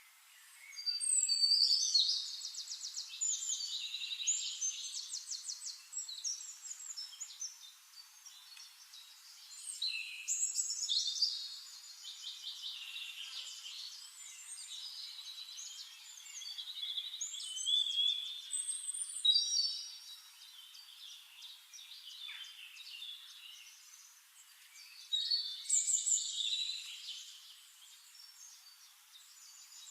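Songbird song: bursts of rapid high trills and warbling whistles, in four or five phrases a few seconds apart, over a faint steady outdoor background.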